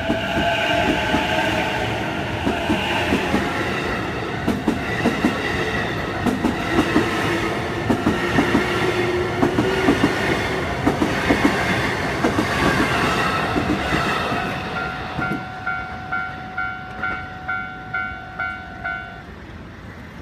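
Electric commuter train passing over a level crossing, its wheels clacking over the rail joints in a steady rhythm. In the last few seconds the crossing's electronic warning bell rings, a rapid repeated ding about two or three times a second, as the train noise fades.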